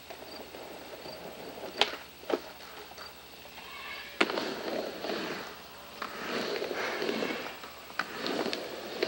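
Skateboard wheels rolling on a wooden mini ramp in repeated passes, with sharp clacks of the board and trucks striking the ramp; the loudest clack comes about four seconds in, and more follow near the end.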